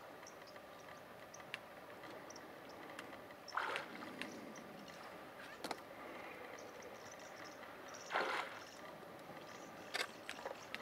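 Faint river ambience of water lapping, with two short rushing, splash-like noises about three and a half and eight seconds in. A few sharp clicks come near the end, and faint high chirps are scattered throughout.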